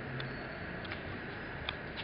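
Three short clicks as buttons are pressed on the Bridgeport EZ Trak CNC control keypad, the last one loudest, over a steady hum.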